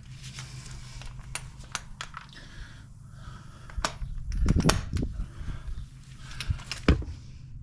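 Scattered clicks and knocks of hand tools being worked on the front axle nut, with a cluster of louder knocks about halfway through and another near the end.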